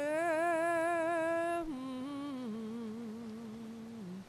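A solo voice singing a slow melody with vibrato: one long held note, then a step down to two lower held notes, ending shortly before the close.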